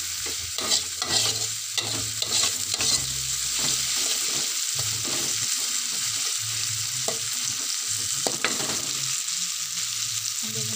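Chopped chillies, shallots and garlic sizzling in a wok as they are sautéed until fragrant, with a metal fork-like utensil scraping and clinking against the pan as it stirs. The stirring strokes are busiest in the first few seconds, with a couple more scrapes near the end.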